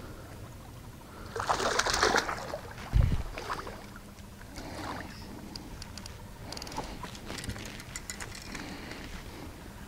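A hooked smallmouth bass thrashing and splashing at the water's surface beside the boat, loudest about a second and a half in, followed by a short dull thump. After that come scattered light clicks and rustles as the fish is handled and lifted aboard.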